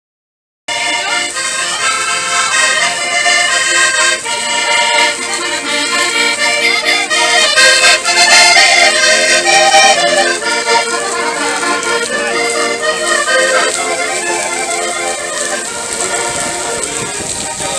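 Several button accordions playing a traditional Portuguese folk tune together, starting about a second in.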